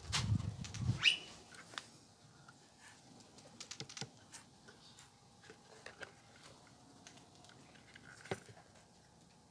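Footsteps thudding on a wooden deck in the first second, then light taps and clicks of hands handling the subwoofer's removed plate amplifier board on top of the cabinet, with one sharper click near the end.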